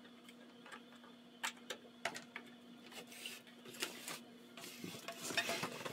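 Light scattered clicks and taps of metal parts as a chrome tube guard is set over a tube amplifier's valves and the amp is handled, busier near the end. A faint steady hum runs underneath and stops about three-quarters of the way in.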